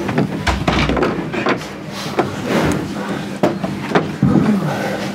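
Press-room bustle as someone sits down at a table of microphones: scattered knocks and clicks of handling and furniture, with murmured voices in the room.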